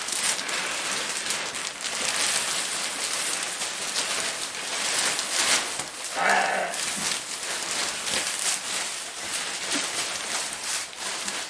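Plastic barber cape rustling and crinkling continuously as it is shaken out and draped around a seated man's shoulders.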